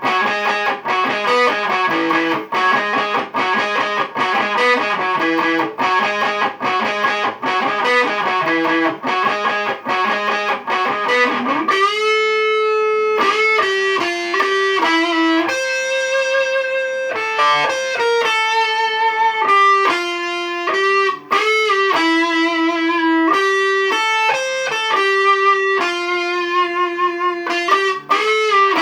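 Electric guitar playing an instrumental piece. Fast picked notes repeat for about the first twelve seconds, then a sustained single-note lead melody follows, with slides between notes.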